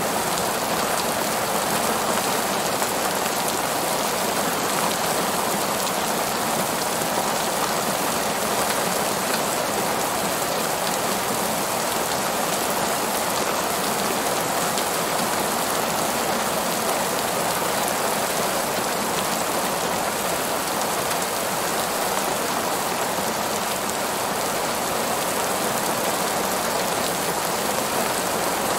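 Heavy rain falling steadily on a parking lot: an even, unbroken hiss.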